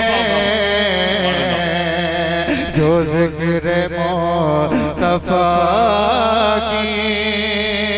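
A man singing a naat into a microphone, drawing out long wavering notes with melodic turns, over a steady low hum.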